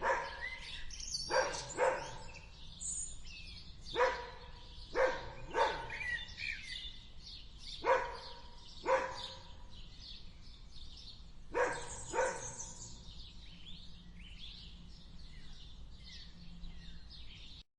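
A dog barking about ten times, mostly in pairs a second or less apart with a few seconds between pairs, the barks stopping about twelve and a half seconds in. Birds chirp steadily throughout, and everything cuts off suddenly near the end.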